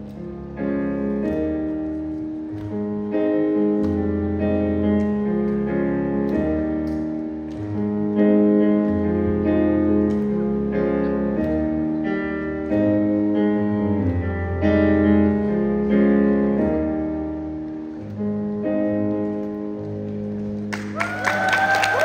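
Stage piano playing slow held chords that change every second or two as a song's closing passage. Near the end the audience breaks into clapping and cheering, with whistles.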